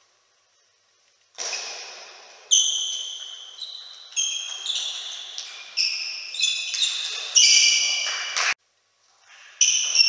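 Table tennis rally: a string of sharp pocks as the ball is struck by bats and bounces on the table, each ringing on in the hall. It starts with the serve just over a second in and breaks off briefly near the end.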